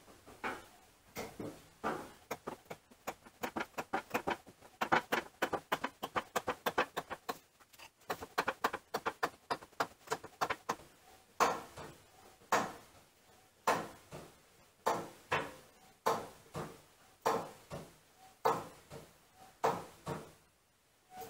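Repeated metallic clicks, a fast run of about four or five a second, then slower single knocks about one a second, each with a short ring.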